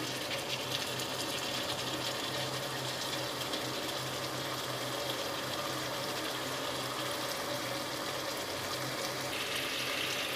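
Chicken masala sizzling steadily as it fries in a steel pot on the stove, turned now and then with a wooden spatula.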